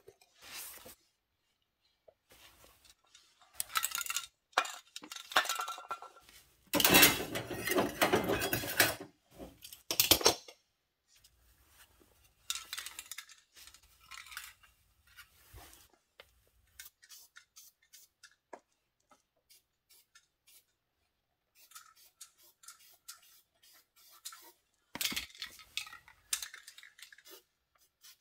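Light metal clinks and rattles of a sheet-metal patch piece and tools being handled. About seven seconds in there is a noisy burst of about two seconds from an aerosol can of zinc weld-through primer spraying.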